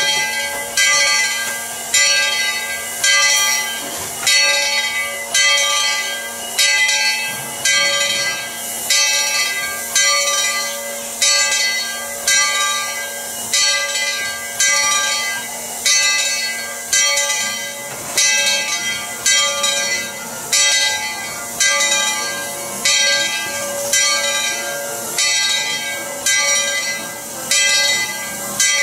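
The bell of Tweetsie Railroad's No. 12, a narrow-gauge 4-6-0 steam locomotive, ringing steadily at about one stroke a second, with steam hissing from the locomotive between the strokes.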